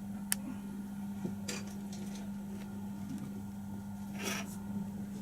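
Kittens pawing at a cardboard cockroach trap: a sharp click near the start and brief, faint rustles, over a steady low hum.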